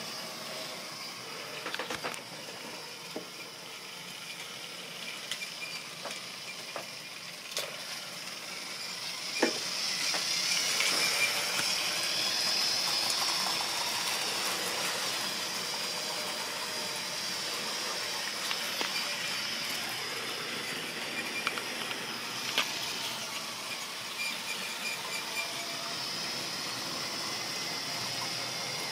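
Model railway train running on the layout: a steady whirring hiss from the locomotive's motor and wheels on the track, with scattered clicks. It grows louder about ten seconds in and then holds steady.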